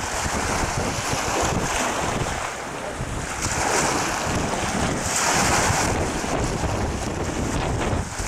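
Wind buffeting the microphone over choppy water, with waves slapping; the rush of noise swells louder twice, about halfway through and again a little later.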